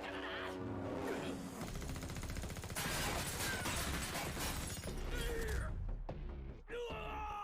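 Anime soundtrack: a dense, rapid crackling burst of action sound effects, from about two seconds in to nearly six seconds, followed by a short stretch of character voices near the end.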